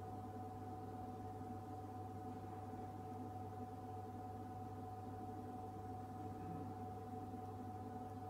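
Refrigerated drinks vending machine running with a steady hum: a low drone with a clear, steady higher tone above it.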